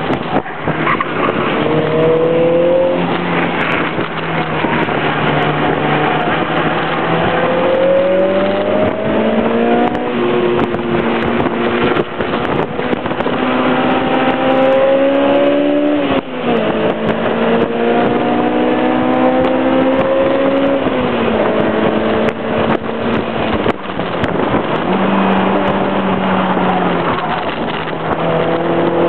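Honda S2000's inline-four engine heard from inside the car, pulling hard with its pitch climbing several times and falling back sharply between pulls, over steady wind and road noise.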